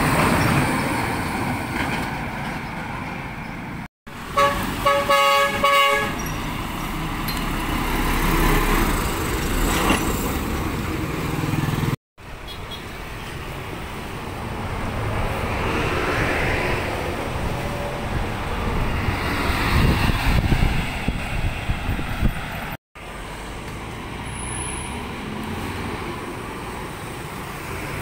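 Heavy trucks and a bus driving past on a road: engine and tyre noise that swells and fades as each one goes by. About four seconds in, a vehicle horn sounds a quick run of short toots.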